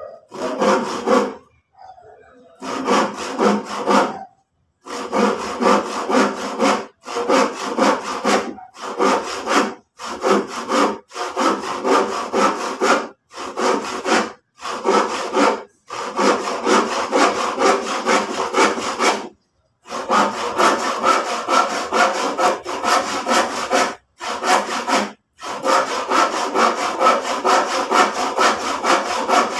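Hand saw cutting through used lumber, in steady back-and-forth strokes of about two or three a second, stopping briefly every few seconds before starting again.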